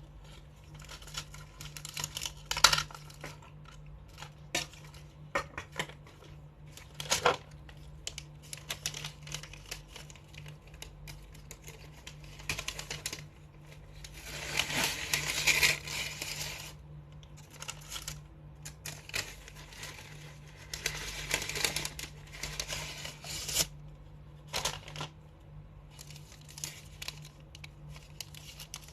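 Paper and plastic fast-food packaging crinkling and rustling, with scattered clicks and taps and two longer stretches of rustling, over a steady low hum.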